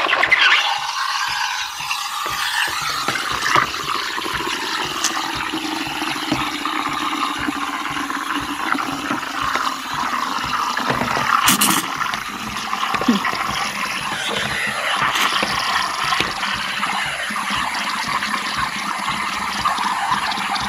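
Espresso machine steam wand hissing and gurgling steadily in a stainless steel pitcher, frothing almond milk with matcha.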